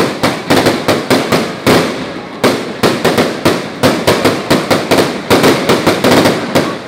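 Fireworks display: aerial shells bursting in a rapid, unbroken string of sharp bangs, several a second.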